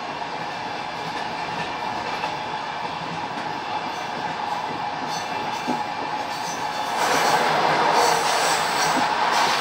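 Passenger train running on the rails, heard from inside a carriage: a steady rumble with occasional wheel knocks at the rail joints. It grows suddenly louder and harsher about seven seconds in.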